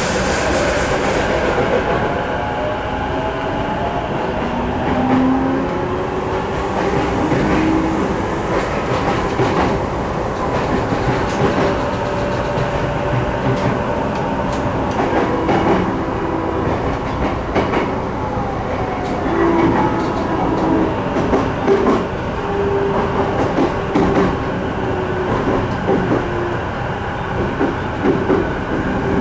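Running sound inside a Sotetsu 12000 series electric train, whose underfloor equipment is nearly the same as the JR East E233 series. Wheels click over rail joints, and the inverter and traction-motor whine slides in pitch as the train changes speed.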